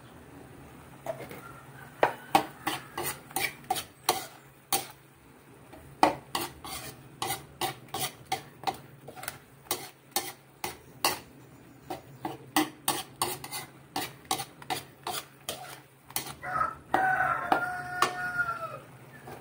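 Raw ground pork being mixed and stirred in an aluminium wok, with sharp metal clacks of the spoon against the pan two or three times a second. Near the end a rooster crows, a drawn-out call that falls in pitch.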